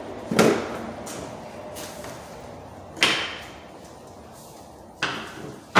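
A length of crown molding knocking against a miter saw's fence and table as it is set down and shifted, four sharp wooden knocks a second or more apart. The first and last knocks are the loudest.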